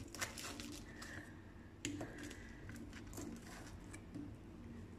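Faint scraping and a few soft clicks of a knife blade scoring lines into half-set peanut brittle in a steel pan.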